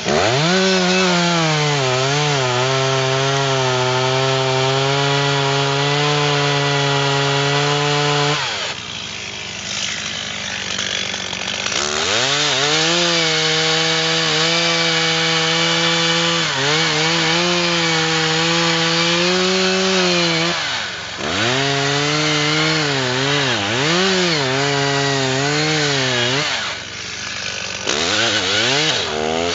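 Chainsaw cutting into a dry walnut trunk, revved to full throttle and held under load, dropping back to idle for a few seconds about a third of the way in and briefly twice near the end between cuts.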